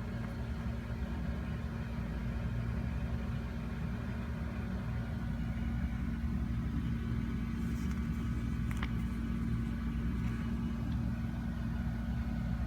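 A steady low mechanical hum with a constant tone, and a few faint clicks about nine seconds in.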